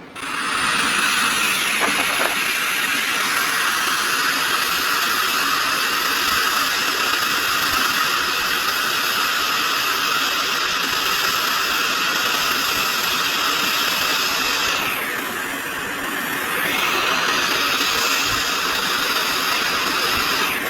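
Hot air rework station blowing a steady stream of hot air onto the motherboard, a continuous hiss with a faint whine in it. The hiss thins briefly about three quarters of the way through, then comes back.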